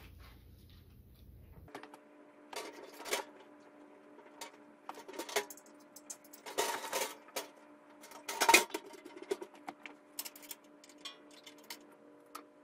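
Clicks, knocks and short metal clattering from a wood stove insert's surround panel and parts being handled, over a steady low hum. There are several sharper rattles, the loudest a little past the middle.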